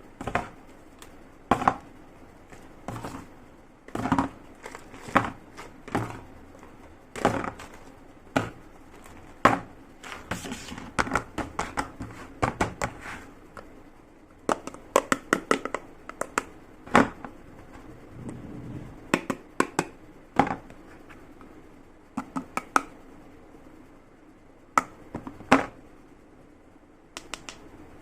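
Slime being squeezed and mixed by hand, giving irregular sharp sticky pops and clicks, some in quick clusters.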